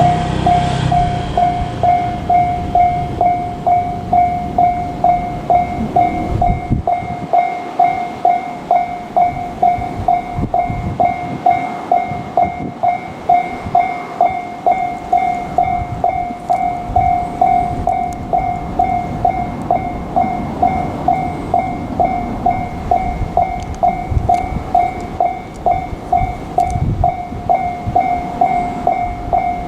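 Japanese level-crossing warning bell ringing steadily, about two strikes a second, over a JR Freight train hauled by an ED76 electric locomotive rolling past with rumble and wheel clatter.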